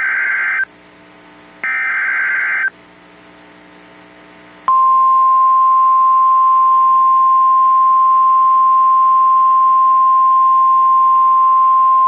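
NOAA Weather Radio emergency alert: the end of one SAME digital header burst, then a second harsh, buzzy data burst about two seconds in lasting about a second, which encodes the alert. After a pause of faint hiss, the steady single-pitch 1050 Hz warning alarm tone starts about five seconds in, sounding that a warning (here a flash flood warning) is being issued.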